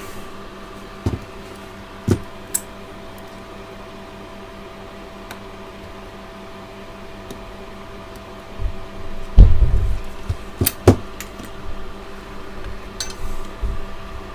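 Scattered clicks and knocks of soldering tools being handled and set down on a workbench, with a louder cluster of knocks about two-thirds of the way in, over a steady background hum.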